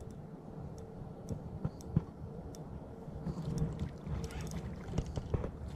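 Spinning reel being cranked against a hooked fish that is pulling hard: scattered light clicks over a faint steady hum, with water and wind noise around them.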